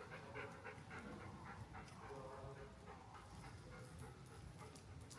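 German shepherd panting: quick, even breaths for the first couple of seconds, then fainter.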